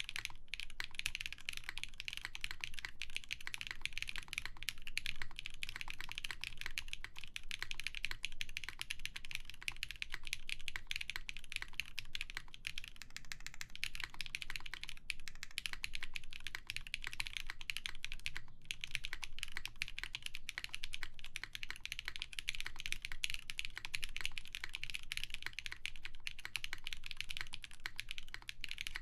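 Continuous fast typing on a mechanical keyboard with lubed Zakus switches, a full polycarbonate plate and GMK keycaps: a dense stream of key clicks and bottom-outs, with a brief pause about eighteen seconds in.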